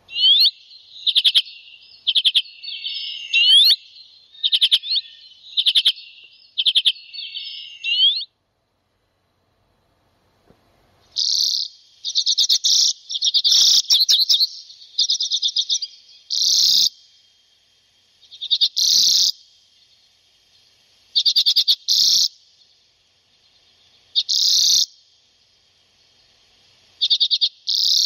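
Common redpolls calling: short bursts of rapid, chattering trills, with rising swooping notes among them in the first few seconds. After a gap of about two seconds the chattering bursts come every second or two, over a faint steady high tone.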